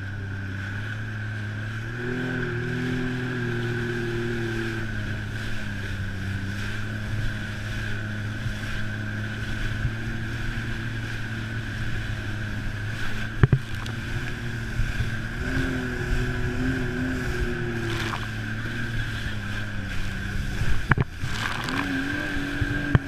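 Sea-Doo jet ski engine running under way, muffled by the camera's waterproof case, over the hiss of water and spray along the hull. The engine pitch rises about two seconds in and again about fifteen seconds in, then settles back each time.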